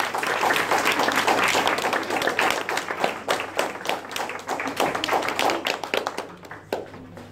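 Applause: many hands clapping together, thinning to a few scattered claps and dying away near the end.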